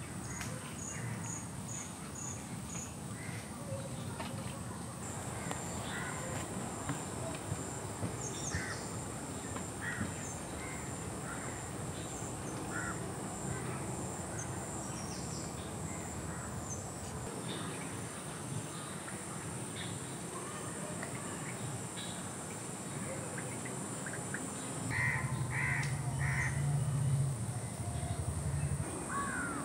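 Rural outdoor ambience: a steady high-pitched insect drone with scattered bird calls, and a louder run of calls near the end.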